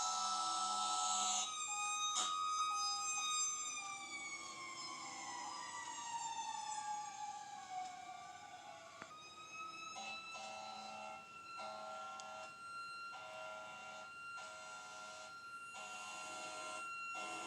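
Fire truck sirens and horns. A held horn blast cuts off about a second in, a siren then winds down in one long falling wail, and short horn blasts repeat about once a second over a steady siren tone.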